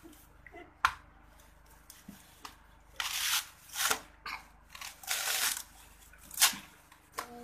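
Coconut husk being torn off with the teeth: crunching and ripping of the tough husk fibre in several short bursts, with a sharp crack about a second in and another near the end.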